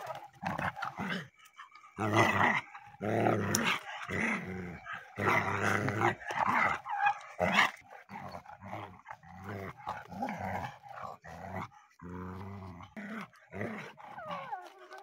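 Two dogs fighting, snarling and growling in loud repeated bouts for the first eight seconds or so, then in shorter, quieter growls as the scuffle eases.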